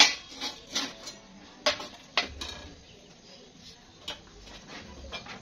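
Sharp metallic clinks and knocks from thin steel square tubing being handled: several close together in the first couple of seconds, then only a few, fainter.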